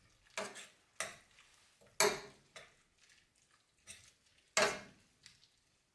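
Metal spoon stirring stew in a stainless steel pan, clinking against the side and bottom of the pan about once a second.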